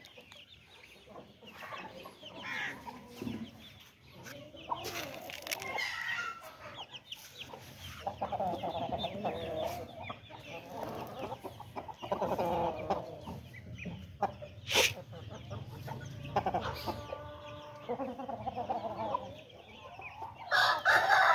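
Flock of Aseel chickens clucking and calling on and off, with one longer, held call about seventeen seconds in. A single sharp click about fifteen seconds in.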